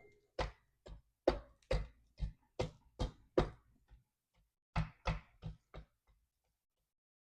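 Knife chopping on a cutting board: a string of sharp knocks about two or three a second, a pause of about a second, then a shorter run of knocks.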